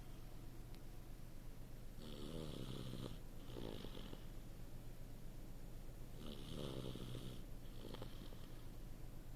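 Small child snoring in deep sleep: two snores about four seconds apart, each a longer rattling breath followed by a shorter one, over a low steady hum.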